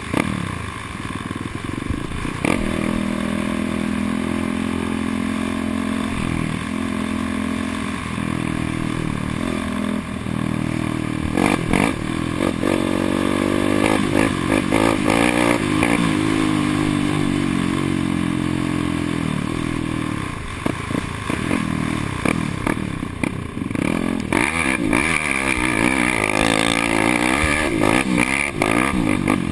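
Suzuki LT-R450 quad's 450cc single-cylinder four-stroke engine running hard under the rider, its pitch rising and falling as the throttle is worked. Clatter and knocks come through in the second half.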